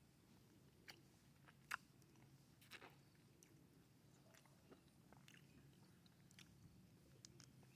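Faint, scattered wet clicks of someone chewing and biting into fresh mango, the sharpest one a little under two seconds in, over a low room hum.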